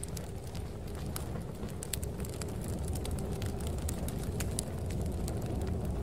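Crackling fire: irregular sharp snaps and pops over a steady low rumble.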